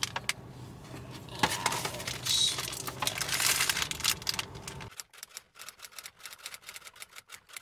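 Paper shopping bag rustling and crinkling. About five seconds in, this gives way to a typewriter sound effect: a quick run of sharp key clicks.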